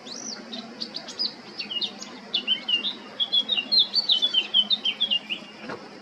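Male Eurasian blackcap singing one song of about five seconds: a quieter twittering start that builds into a louder, fast run of varied whistled notes, then stops abruptly.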